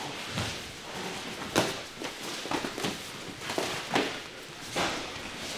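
Boxing gloves and shin guards striking during sparring: irregular thuds and slaps, the sharpest about a second and a half in, with feet shuffling on the mats.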